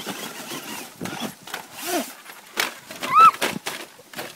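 Dry leaf litter crunching in irregular crackles as a radio-controlled toy truck drives over it, with two short rising-and-falling calls, the louder one about three seconds in.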